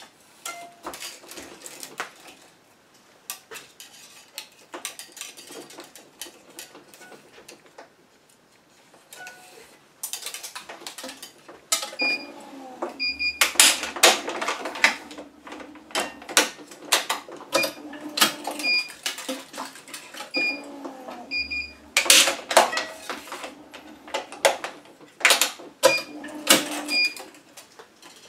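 A tennis racket being strung on an electronic stringing machine: a run of clicks, taps and clatter from the clamps and string being handled. It is sparse at first and busier in the second half, where a few short high tones sound among the clicks.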